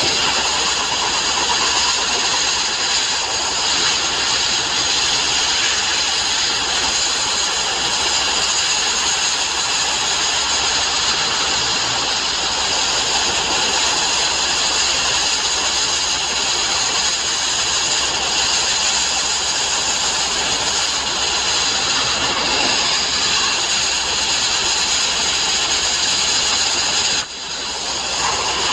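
Abrasive blasting: a steady, loud hiss of grit and compressed air from a blast nozzle working over steel plate, with one brief dip near the end.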